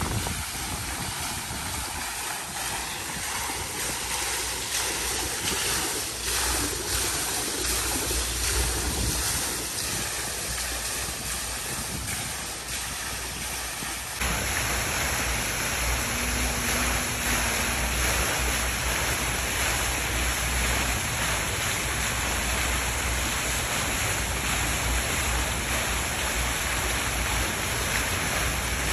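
Water cascading from a tiered stone fountain into its basin, a steady splashing rush. It gets louder and brighter at a cut about halfway through.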